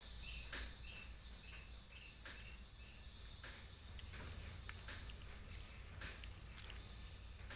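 Faint outdoor insect ambience: a run of short, evenly spaced chirps in the first couple of seconds, then a thin high insect trill through the middle, with a few light clicks.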